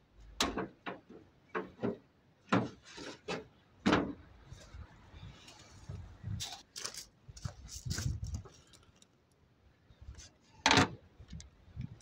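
Irregular clicks, knocks and clatter of hand tools and metal engine parts being handled while a Land Rover 200TDi engine's oil condenser is removed.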